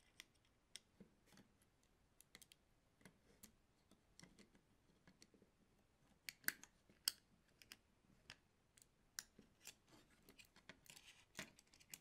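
Quiet, scattered metallic clicks and ticks of an Allen key and a small wrench working the bolt and nut of a V-track wheel on a 3D printer's build-plate carriage, as the bolt is loosened. Two louder clicks come about six and seven seconds in.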